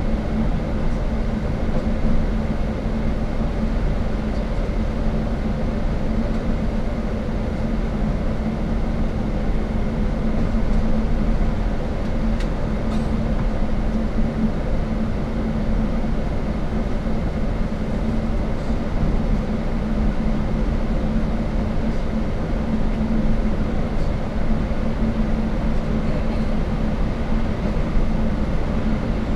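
Steady cabin drone of a cross-sea shuttle bus cruising: a low engine hum over constant road rumble, heard from inside the bus.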